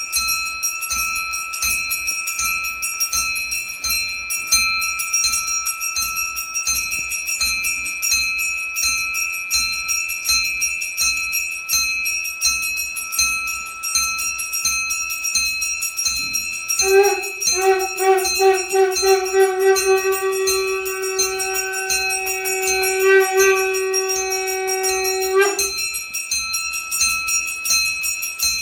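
A puja hand bell rung rapidly and without a break, an even ringing shimmer. Partway through, a conch shell joins with one long steady note held for about eight seconds.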